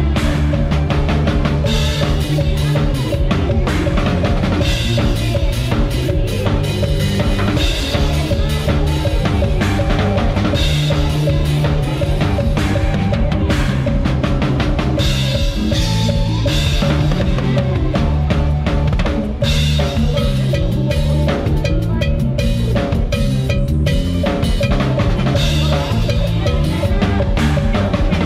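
Drum kit played hard in a live band: dense strokes on snare, bass drum and cymbals over the band's bass and other instruments.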